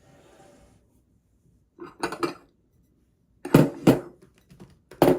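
Dishes and cutlery clattering: groups of sharp clinks and knocks about two seconds in, more loudly a little past halfway, and again near the end.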